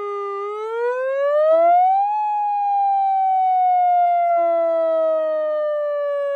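Electronic outdoor warning siren tone from a Federal Signal UltraVoice+ controller, sounding a wail. Its pitch rises over about two seconds, then falls slowly for the rest of the time.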